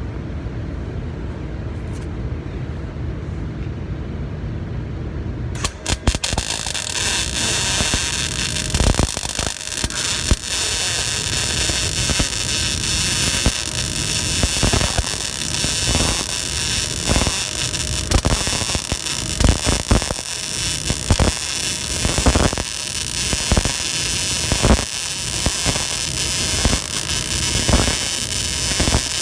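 A low steady hum for about six seconds, then a MIG welding arc strikes and runs, crackling and sizzling steadily with irregular louder pops as the wire feeds into the weld.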